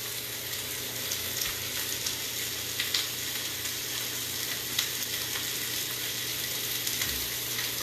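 Food sizzling in hot oil in frying pans: a steady hiss with scattered pops and crackles, over a faint low hum.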